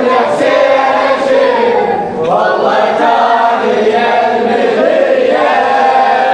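Group of male mourners chanting a lamentation refrain together in unison, a Shia latmiya chant.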